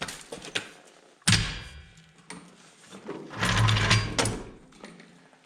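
Metal knocks from working on a lawn mower, one sharp knock, then a louder rough rattling clatter for about a second.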